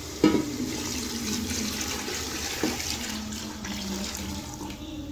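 Water and meat stock poured in a stream into a pot of browned meat and masala, splashing onto the meat; the pour starts just after the beginning with a splash and tails off near the end.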